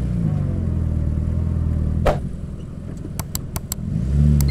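Toyota Lite Ace van's engine revving up and easing off, twice, as the van tries to drive out of soft sand where it is stuck. A sharp knock comes about two seconds in, and a few quick clicks follow near the end.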